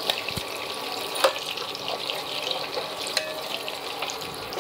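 Hot oil sizzling and crackling around slabs of paneer shallow-frying in a steel pan. A couple of sharp clicks from a metal spatula against the pan, about a second in and again after three seconds.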